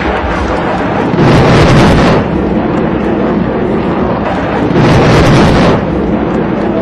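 Explosions on a hillside: a continuous heavy rumble with two louder surges of about a second each, one about a second in and one around five seconds in.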